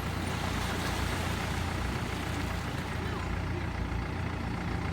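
Steady engine and road noise of a moving vehicle: a continuous low rumble under an even hiss.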